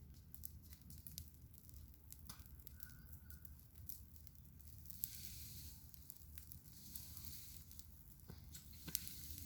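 Campfire burning: faint crackling with scattered sharp pops and a soft hiss that swells about halfway through.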